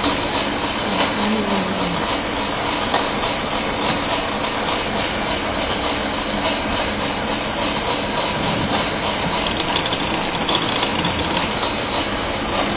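Lace sewing machine running steadily as fabric is fed through it: a continuous, even mechanical noise with no pauses.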